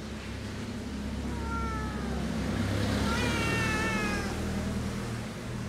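A domestic cat meowing twice: two drawn-out meows, each sliding slowly down in pitch, the second louder and longer.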